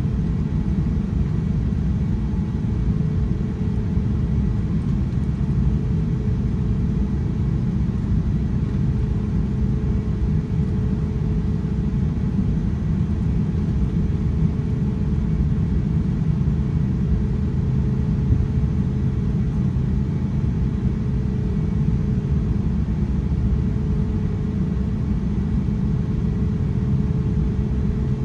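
Steady low rumble inside the cabin of an Airbus A350-900, its Rolls-Royce Trent XWB engines at low power as the aircraft taxis, with a steady mid-pitched hum running through it and no change in level.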